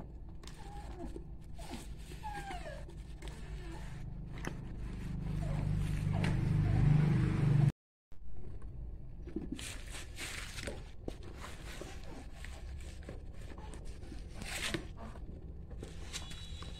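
Silicone rubber mould being pulled and peeled off a cast concrete planter: rustles, scrapes and small knocks of handling. A low rumble builds about four seconds in and grows loudest before it cuts off abruptly near the middle.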